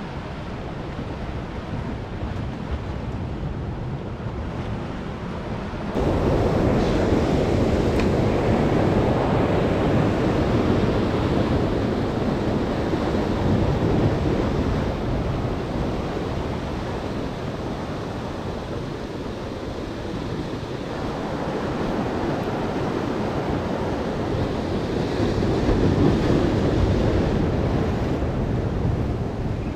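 Ocean swell surging and washing white against a rock wall, with wind buffeting the microphone. The surf gets louder about six seconds in and swells up again near the end.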